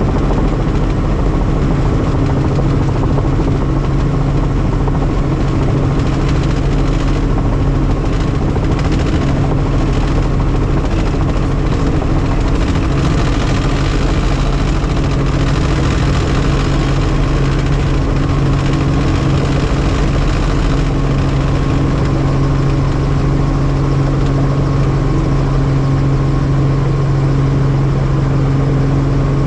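Helicopter in flight: the steady drone of its engine and rotor, with a hissing rush added in the upper range for a stretch in the middle.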